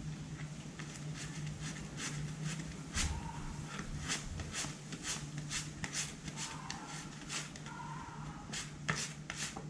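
Scraping strokes on a rubber bicycle inner tube, roughening the area around the puncture to prepare it for glue and a patch, about two strokes a second, over a low steady hum.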